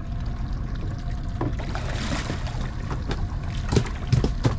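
A hooked California halibut thrashing and splashing at the water's surface beside the boat as it is gaffed. The sharp splashes come thick and fast near the end, over a steady low rumble.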